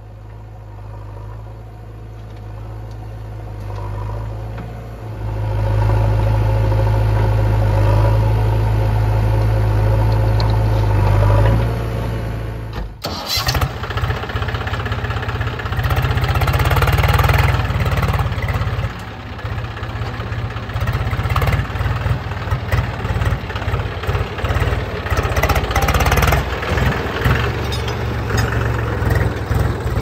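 Diesel engines of a Swaraj tractor and a JCB backhoe loader running. A steady low idle grows louder about five seconds in. After a break near the middle, an uneven, fluctuating engine rumble follows.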